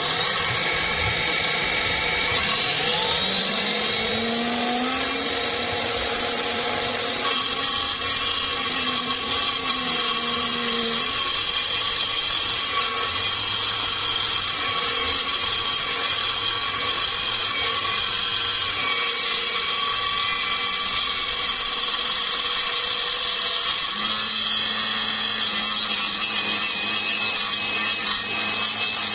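Homemade table saw's DC 895 motor spinning a 6-inch circular saw blade with no load. The whine rises in pitch over the first few seconds as it speeds up, then runs steady, and a lower hum joins near the end.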